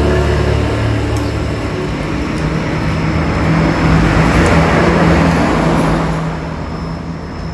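Road traffic: motor vehicles running past close by, their engines humming with tyre noise, loudest through the middle and fading away near the end.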